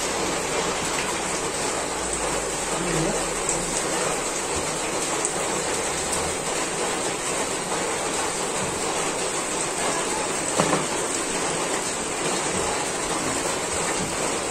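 A steady, even hiss like rain falling, unchanging in level, with one brief soft knock about ten seconds in.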